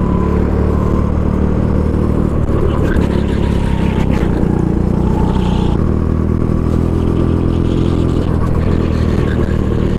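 Go-kart engine running hard under way, heard from the driver's seat, its note shifting slightly about halfway through.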